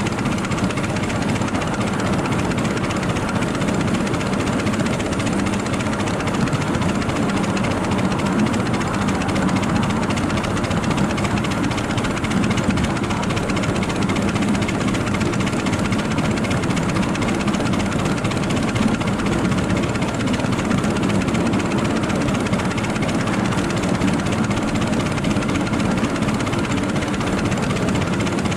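Steady, even running noise of a 7.5-inch gauge ride-on miniature train moving along its track, with no breaks or distinct events.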